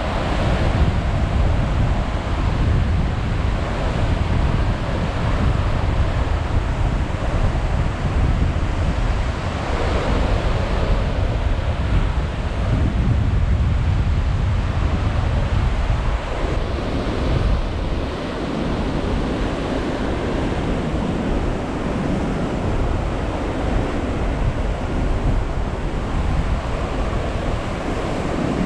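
Heavy surf after a typhoon breaking against sea cliffs, a dense rumbling wash that swells and eases, with wind buffeting the microphone.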